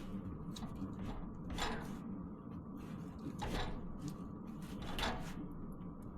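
Three clunks and scrapes of parts and tools being handled over a steady low hum, which is the shop's Webasto diesel heater running.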